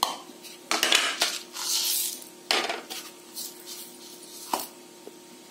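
Coconut pieces, black peppercorns and fennel seeds tipped from small bowls into a steel mixer-grinder jar: several clinks and knocks of bowl on metal, with the seeds rattling into the jar.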